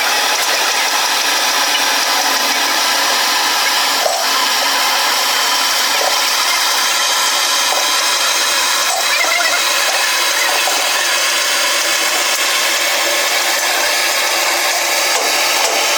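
Power tool running steadily with an even motor whine, unbroken throughout.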